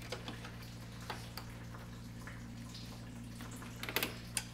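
Light clicks and ticks of slip-joint pliers working a spring hose clamp on a car's radiator hose as the clamp is squeezed and slid back, with a few louder clicks near the end, over a steady low hum.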